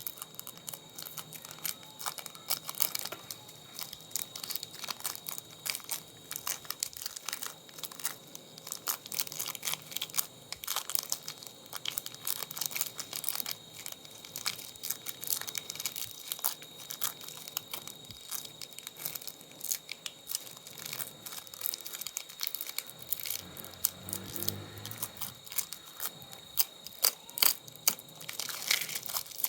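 Dense, irregular clicking and crackling of small parts being handled and pried apart during a monitor teardown, over a faint steady high-pitched whine.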